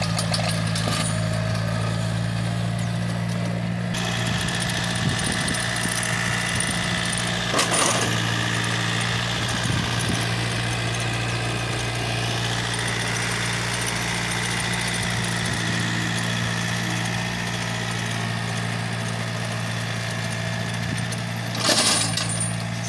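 Yanmar (Agritech 1155) compact tractor's diesel engine running steadily under load as it pulls a trenching implement through stony soil. Two short knocks stand out, about eight seconds in and near the end.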